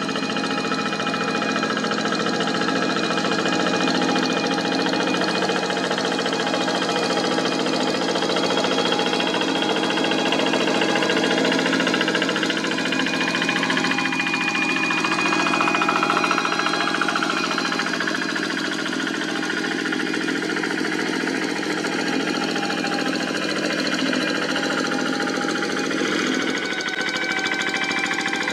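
Diesel engine of a walk-behind tractor running steadily with a rapid knocking beat while ploughing, its pitch drifting slightly as the load changes.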